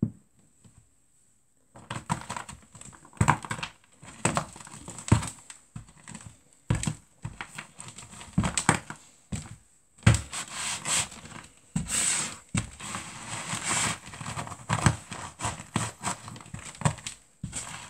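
Canvas sneakers stamping and grinding dry biscuits on a wooden floor, starting about two seconds in. Repeated crunching and crackling as the biscuits break into crumbs, with dull thuds of the soles on the boards.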